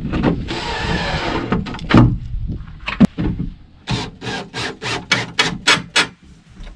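Cordless drill driving screws into a plywood deck: one run of the drill near the start, a couple of sharp knocks, then about eight short pulses of the drill, roughly four a second, as a screw is seated.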